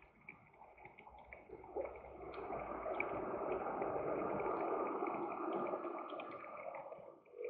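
Street traffic noise, mostly scooters crossing the intersection, swelling from about a second and a half in and fading near the end, with faint ticking throughout.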